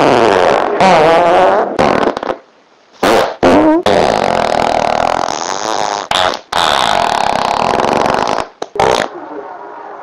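A string of loud farts in quick succession, with short breaks between them. Some last one to two seconds and waver in pitch; a few are short blasts.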